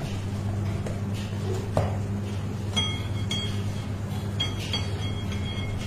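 Several light metallic clinks about halfway through, metal utensils striking metal, the last few ringing on for about a second, over a steady low hum.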